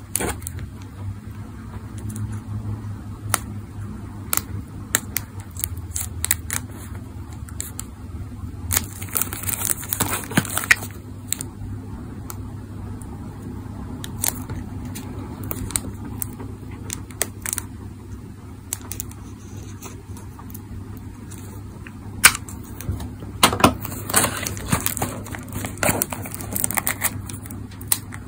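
Cellophane wrapping on a small cardboard toy-car box being cut with a handheld plastic film cutter: scattered sharp clicks and crackles as the blade scrapes along the box edges. From about three-quarters of the way in, louder crinkling as the film is pulled loose and peeled off.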